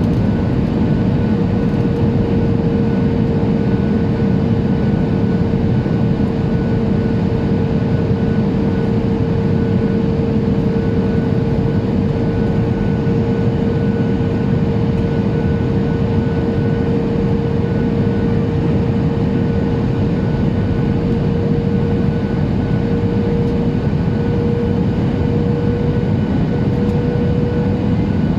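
Boeing 737-800 cabin noise: a steady rumble of engines and airflow with a constant whine from its CFM56 engines.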